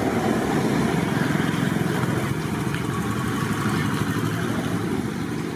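A small engine running steadily close by, with fast even pulsing, amid street traffic noise.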